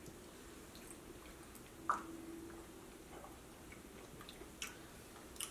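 Faint clicks and taps from small tasting cups being picked up and drunk from, the sharpest about two seconds in, followed by a brief low hum.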